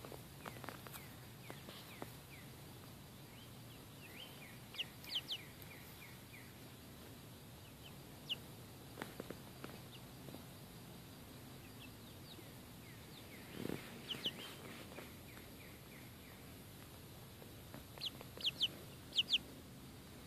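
Young chickens giving short, high peeps, in clusters of two or three every few seconds. A soft thump about two thirds of the way through.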